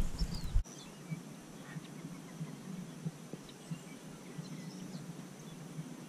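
Wind buffeting the microphone, cut off abruptly about half a second in, then faint outdoor ambience with scattered distant bird chirps.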